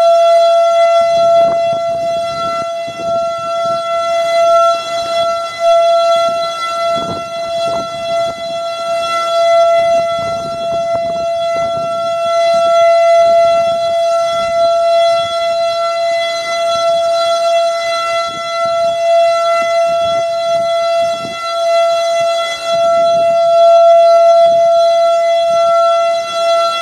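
Outdoor tornado warning siren sounding a steady, unwavering tone that swells and fades in loudness, with gusts of wind rumbling on the microphone.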